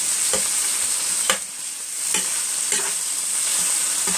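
Browned ground beef sizzling in a pan while a metal spatula turns it over, scraping and clicking against the pan bottom several times.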